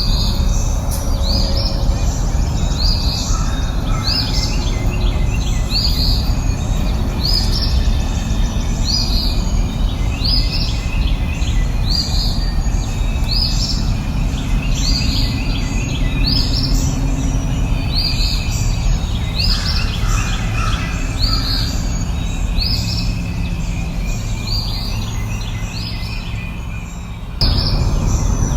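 A bird repeating a short rising chirp about once a second over a steady low rumble of outdoor noise. Near the end the background fades slightly, then cuts back in suddenly.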